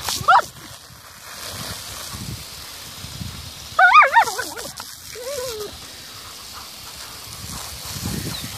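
German Shepherd dogs yelping while they play in a spraying garden water jet. A couple of short yelps come at the start, a louder cluster of high yelps about four seconds in, and a lower call just after, all over a steady hiss of spraying water.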